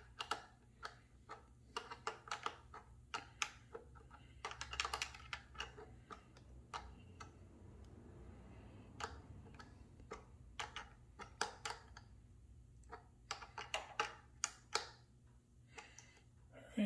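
Hand socket ratchet clicking in short runs as its handle is swung back and forth, turning a motorcycle battery terminal bolt.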